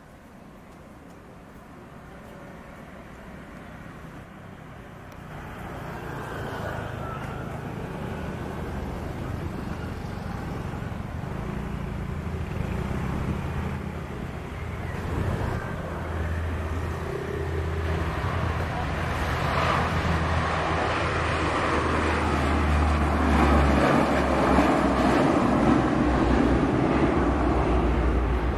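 Lockheed C-130 Hercules' four turboprop engines at takeoff power during the takeoff roll, growing steadily louder as the aircraft comes nearer. A low, steady propeller drone sits under rising engine noise, and the sound is loudest in the last few seconds.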